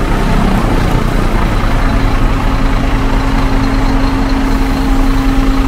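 Diesel engine of a Scania double-decker coach running close by, a steady drone. A steady hum comes in about two seconds in.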